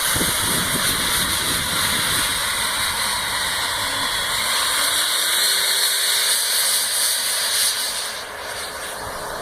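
90 mm electric ducted fan on an 8S battery running at high power, a loud steady jet-like whoosh and hiss, easing off about eight seconds in.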